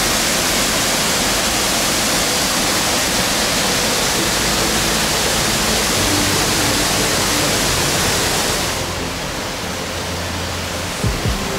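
Rushing water of a mountain stream's cascade, a loud steady hiss. About nine seconds in it drops and turns duller, with a couple of low bumps near the end.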